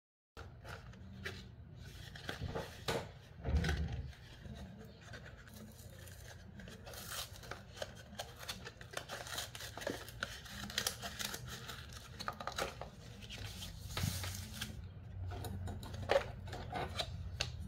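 Thin paperboard food box being pulled apart by hand at its glued seams and flattened: repeated crackling tears and rustling of the cardboard, with a heavier thump about three and a half seconds in.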